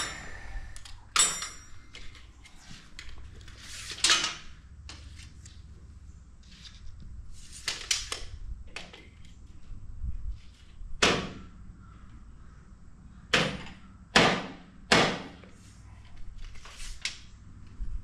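Metal clanks and clicks of a wrench working a steel bed-rail adjuster on a Wood-Mizer LT35 sawmill as the rail height is reset. There are about seven sharp knocks at irregular intervals, the loudest in the second half.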